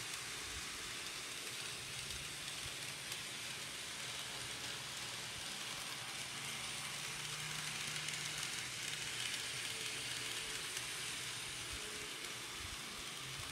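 Two Bachmann N-scale train sets running on Kato track: a steady, quiet whirring hiss of small motors and wheels rolling on the rails, a little louder for a few seconds in the middle.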